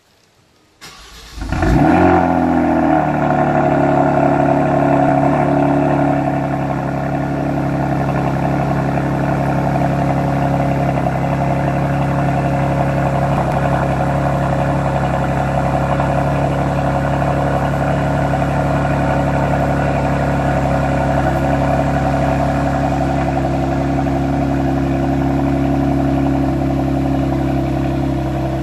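Kia Stinger 3.3T's twin-turbo V6 cold start through aftermarket downpipes and a Borla cat-back exhaust: the starter cranks briefly about a second in, the engine catches with a rev flare about two seconds in, then settles into a steady, fast cold idle that drops slightly around six seconds in.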